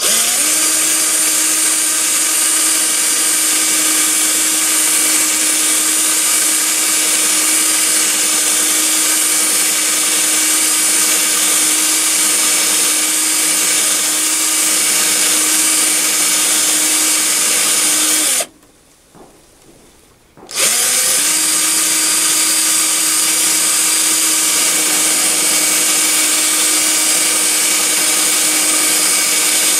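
Mini lathe toolpost drill running a small drill bit through a brass tube and the brass plug inside it. Its motor makes a steady whine that rises in pitch as it spins up, stops about 18 seconds in, and spins up again two seconds later.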